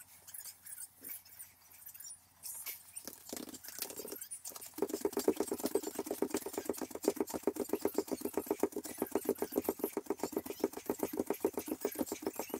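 Bare feet stepping quickly on a foam yoga mat during a HIIT exercise, running or hopping in place. Light, scattered taps at first, then from about five seconds in a fast, even run of footfalls that is louder.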